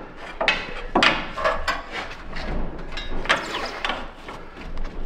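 Scattered metallic clicks, knocks and scrapes of hand tools working at the engine's motor mounts, with no steady rhythm.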